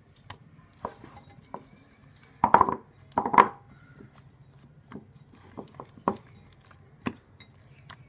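Glass mixing bowl knocking and clattering on a wooden board as a ball of bread dough is dropped into it and pressed down, with two louder clatters about two and a half and three and a half seconds in and scattered light taps.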